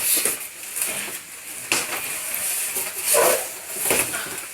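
Handling noises while a heavy folding electric bike is unpacked: packaging rustling over a steady hiss, with a few knocks about two, three and four seconds in.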